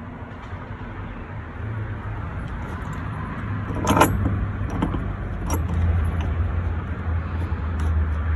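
Light metallic clinks and rattles of a new truck door striker and its bolt being handled and set in place, with a sharp clink about four seconds in. A low rumble grows louder in the second half.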